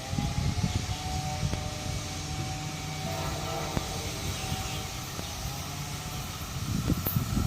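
Amtrak ACS-64 electric locomotive approaching on the track: a steady low rumble with a few faint, thin whining tones above it.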